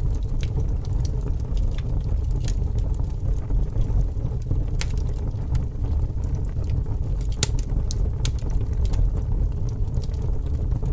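Bonfire crackling: scattered sharp pops and snaps, the loudest about five and seven and a half seconds in, over a steady low rumble.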